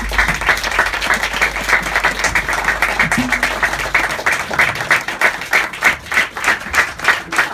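Audience applauding as a song ends, with a low note from the band ringing out under the clapping for the first few seconds. The clapping then settles into an even beat of about three claps a second.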